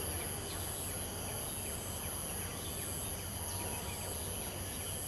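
Steady chorus of insects, a high shrill buzzing that swells and fades, over a low steady rumble.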